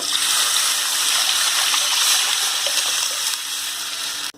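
Watery rasam mixture of tomato, garlic and salt water poured into a hot kadai of sesame-oil tempering and sautéed thuthuvalai leaves: a steady rushing hiss that fades a little and cuts off suddenly near the end.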